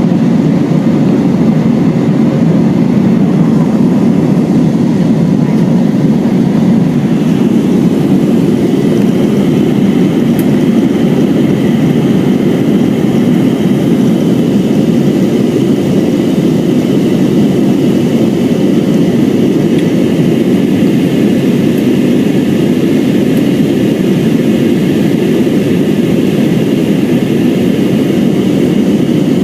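Steady jet engine and rushing air noise inside the cabin of an Airbus A320 in flight, a loud even low rumble with a faint high engine whine above it that becomes clearer about a quarter of the way in.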